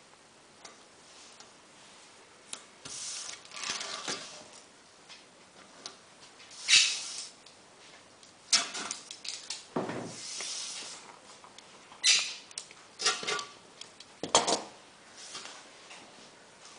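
Scattered light scraping, rubbing and clinking of an aluminium roller-blind tube and bottom rail being handled and slid across a worktable, in short irregular bursts with a few sharp clicks.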